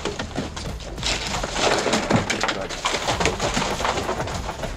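Mahi-mahi being shoved into crushed ice in a boat's fish box: ice crunching and rattling, with irregular knocks of fish and ice against the box.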